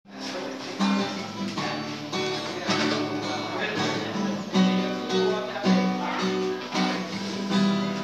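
Acoustic guitar strummed in a steady rhythm, playing the introduction chords of a song.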